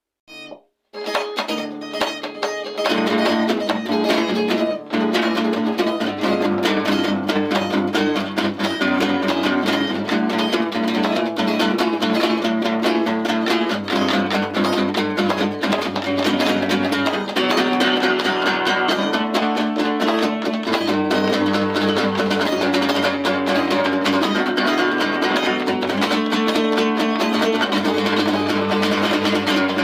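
Acoustic guitar playing an instrumental passage. It starts about a second in and settles into steady, dense playing from about three seconds in.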